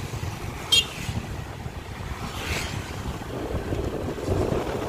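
Wind buffeting the microphone of a moving motorcycle, with a low rumble from the ride along a wet road. A brief, sharp high-pitched chirp about three-quarters of a second in is the loudest sound.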